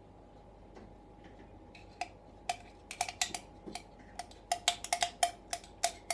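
Spoon clinking against a dish while scraping out and spooning honey-mustard sauce: sharp ringing clicks start about two seconds in and come quicker and louder toward the end.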